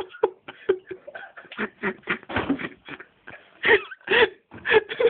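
People's voices talking in short, broken bursts, with no clear words.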